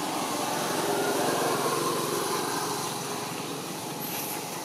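A small engine running steadily, growing a little louder about a second in and then slowly fading.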